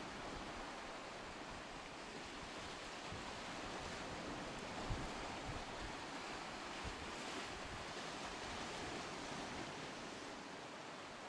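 Steady wash of sea surf and wind, with a few low thumps of wind buffeting the microphone.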